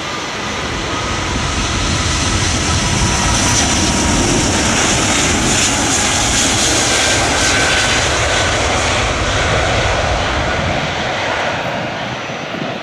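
Airbus A380's four Engine Alliance GP7200 turbofans at takeoff thrust during the takeoff roll: a loud jet roar with a faint whine over it, swelling as the aircraft rolls past and easing a little near the end as it rotates.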